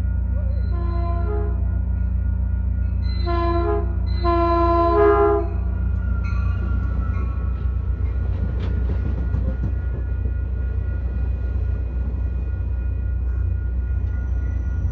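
Caltrain diesel locomotive sounding its chord horn three times in the first five seconds, the third blast the longest and loudest, over the locomotive's steady low engine drone. Then the double-deck passenger cars roll past with a rumble of wheels on rail, and a thin high squeal comes in near the end.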